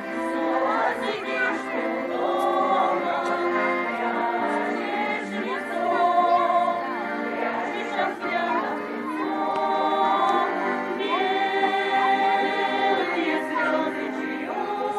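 Folk choir singing, with several voices holding long notes together in phrase after phrase.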